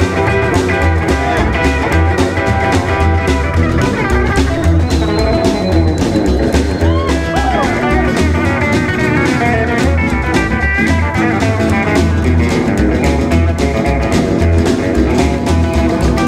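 Rockabilly band playing live: a hollow-body electric guitar takes the lead over a steady, driving beat from the drums, with no singing.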